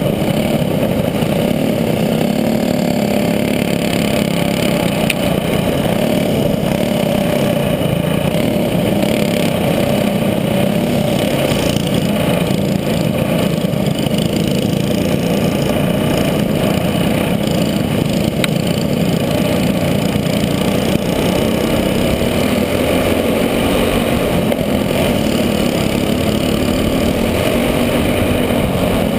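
Racing kart's small engine running steadily under racing load, loud and close, with only small rises and falls in pitch.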